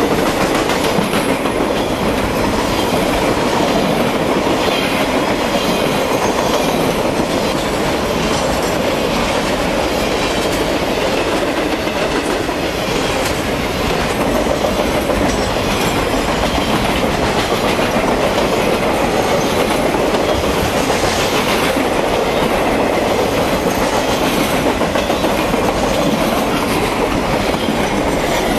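Triple Crown RoadRailer trailers rolling past on their rail bogies: the steady, unbroken noise of steel wheels running on rail as the long freight train goes by.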